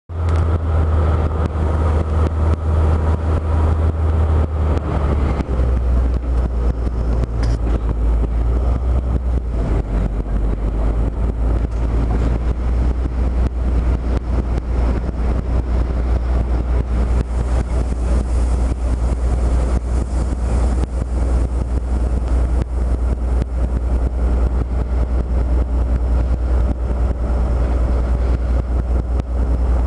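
DB class V60 diesel-hydraulic shunting locomotive's engine running under way with a steady low drone, heard from its outside walkway; the engine note shifts about five seconds in.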